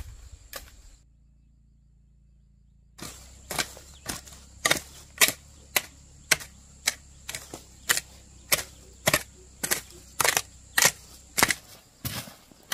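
Sharp, regular knocks of something being struck repeatedly, about two a second, broken off for about two seconds near the start. A low steady hum runs under them and stops shortly before the end.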